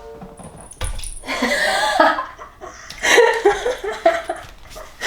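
A woman laughing in two bouts, after a short thump about a second in.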